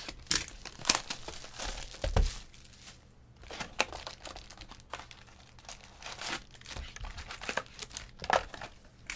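Trading-card pack wrappers crinkling and tearing as packs are opened and cards handled, an irregular run of crackles with a dull bump about two seconds in.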